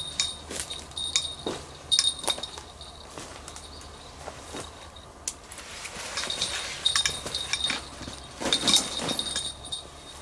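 Irregular rustling and crunching, with short high-pitched metallic clinks scattered through it, loudest around two seconds in and again near nine seconds.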